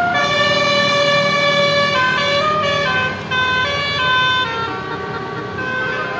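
Bus basuri horn, a multi-tone 'telolet' horn, playing a melody of held notes that step up and down in pitch, softer over the last second or two.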